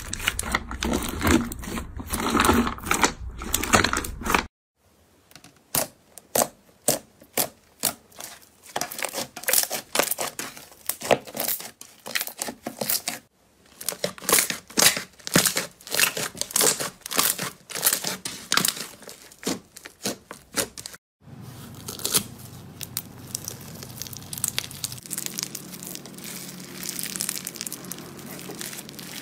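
Hands squeezing, pressing and stretching slime, making crackling, sticky popping and clicking sounds. The sound breaks off briefly three times. First comes a dense crunchy crackle, then two stretches of sharp clicks in quick succession, and near the end a softer crackle over a steady low hum.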